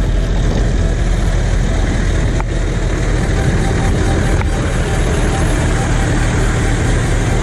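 Ford Cargo 1730 truck's diesel engine running with a steady low rumble as the truck rolls slowly past at close range.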